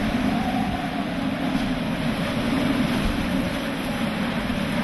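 Hurricane-force wind and rain beating on a vehicle, heard from inside the cabin as a steady, loud rush with a faint wavering howl.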